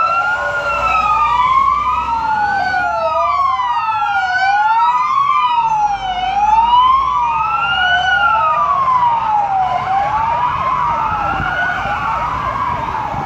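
Several wailing sirens from passing fire trucks and a police car, their slow rising and falling tones overlapping and crossing, with faster, higher sweeps joining for a few seconds in the middle. A heavy engine rumbles underneath.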